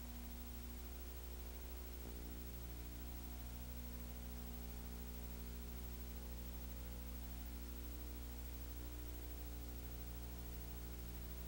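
Steady electrical hum with its overtones over a faint hiss, the sound of a silent film transfer with no sound from the game.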